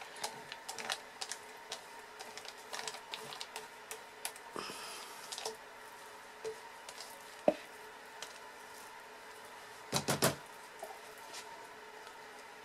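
Scattered light clicks and taps of a silicone spatula scraping and knocking against a soap loaf mold and plastic mixing cups. There is a sharper knock about halfway through and a brief cluster of louder knocks near the end.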